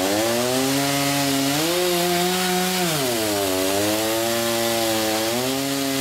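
Antique sawmill's circular saw running with a steady whine whose pitch dips at the start, rises about two seconds in, drops again about three seconds in and climbs back near the end, as the blade's speed changes.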